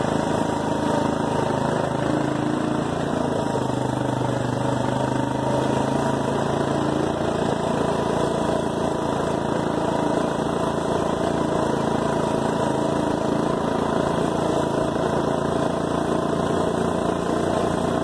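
Four-wheeler (ATV) engine running steadily as it drives along.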